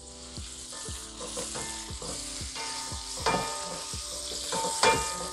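Sliced onions and whole spices sizzling in hot oil and ghee in a large pot, stirred with a wooden spatula that scrapes and knocks against the pot, with two louder knocks in the second half. The onions are being fried toward light brown for a biryani base.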